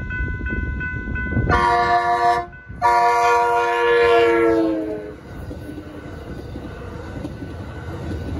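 Railroad crossing bell ringing, then the horn of an Amtrak San Joaquins cab car sounds its chord in two blasts. The second, longer blast falls in pitch as the train reaches the crossing. After it, the bilevel passenger cars rumble steadily over the crossing.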